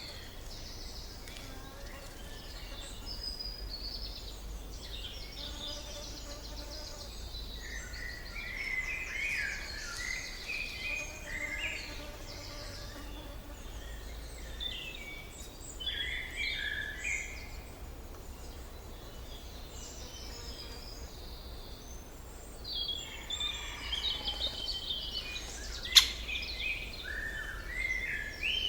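Several songbirds singing in scattered phrases with pauses between, over a steady low background rumble. Near the end a single sharp click stands out as the loudest sound.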